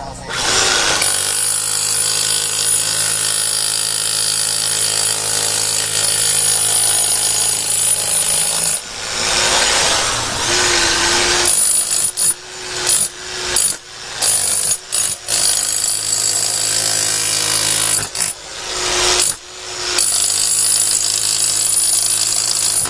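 Jackhammer chipping at a wall to strip its surface before a waterproofing membrane goes on. It runs in long steady bursts, with a few pauses and a quick series of short stops and restarts in the middle.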